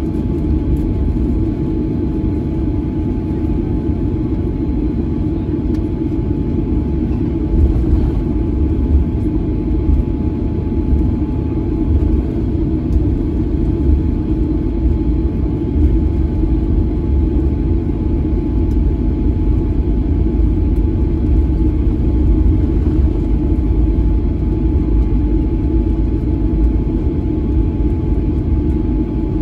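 Cabin sound of a Boeing 737-900 taxiing: a steady low rumble from its CFM56-7B engines at taxi power and the wheels rolling over the pavement, with a thin steady whine above it.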